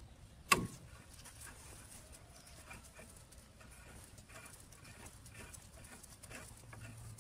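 A sharp crack with a short falling squeak about half a second in as a rusted bolt on a small gasoline engine breaks loose under a long socket wrench, followed by faint ticks of the wrench being turned.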